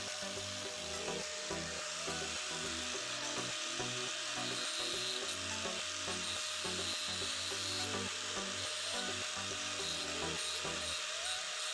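A hand tool rubbing and rasping steadily on wood, with soft background music underneath.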